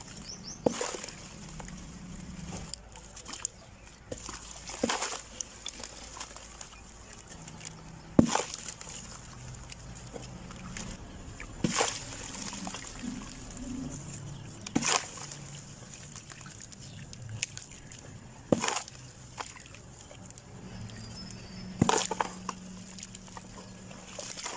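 Clumps of sand cement crumbling or dropping, one sharp crunchy crumble about every three to four seconds, seven in all.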